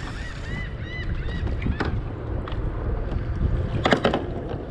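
Steady low wind and water noise on the microphone aboard a kayak, with a few sharp clicks and knocks as a sheepshead is handled in a rubber-mesh landing net. The loudest moment is a short cluster of knocks about four seconds in. A run of short high chirps, like a bird calling, comes in the first second.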